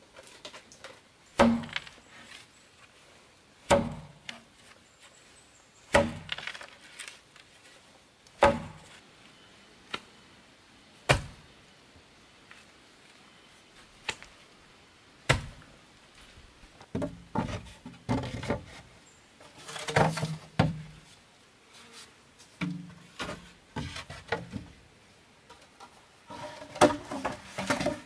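Green bamboo poles knocking against each other and against the bamboo frame as they are handled and set into a wall. The knocks come singly every two or three seconds at first, then in quicker clusters during the second half.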